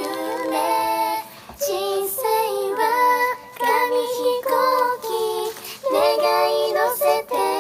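A cappella singing by one woman, multitracked into several harmony parts that move together, with no instruments. The singing comes in phrases broken by short pauses for breath.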